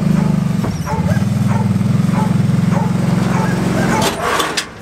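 Kawasaki Brute Force ATV engine running at a steady throttle as it is ridden up a ramp onto a trailer. About four seconds in the engine note drops away and a short burst of noise follows.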